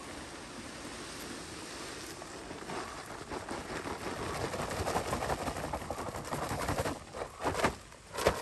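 Rustling and crackling of freshly picked black pepper spikes and peppercorns being handled during threshing. It is dense from about three seconds in, with a few louder scuffs near the end.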